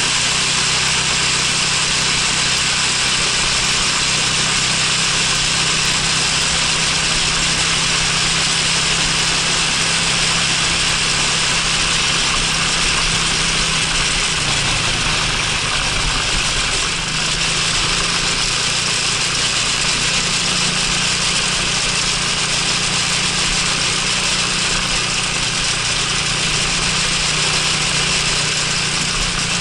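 Honda Freeway 250 scooter's single-cylinder engine running while riding, over a steady rush of wind and road noise. The engine note drops for a few seconds about halfway through, then picks up again.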